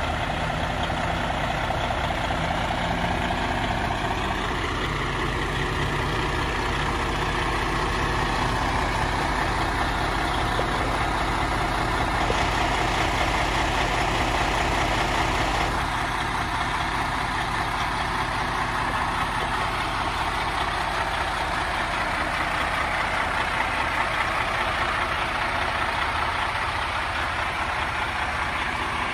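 Diesel engine of a Freightliner 122SD quint-axle dump truck idling steadily.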